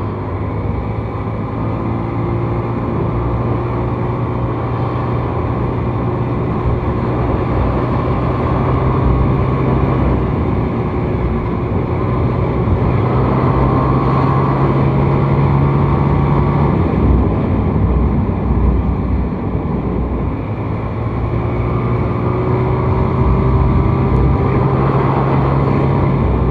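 Small motorcycle's engine running steadily while being ridden. Its note climbs a little about halfway through, falls away briefly, then steadies again.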